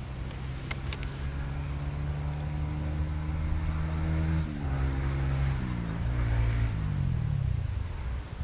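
An engine running steadily, then its pitch dropping in several steps over the last few seconds as it slows.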